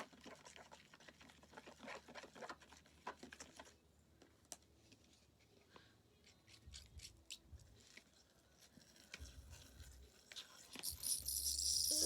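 Sticky homemade slime being stirred and worked in a bowl: scattered wet clicks and crackles, thickest in the first few seconds. A loud hiss rises near the end.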